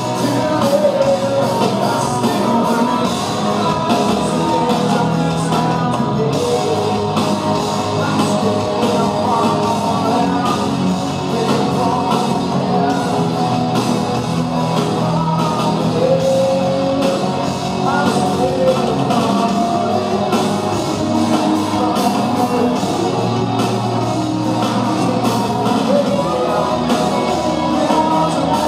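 Live rock band playing: a male singer over electric guitar and drums, loud and continuous.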